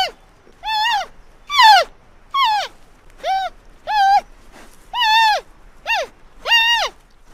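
Giant panda calling: a series of about nine short, high-pitched calls, roughly one every second, each holding its pitch and then dropping away at the end.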